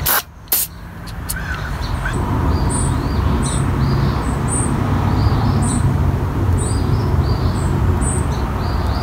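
Birds chirping repeatedly, short calls every half second or so, over a steady low rumble that grows louder in the first few seconds.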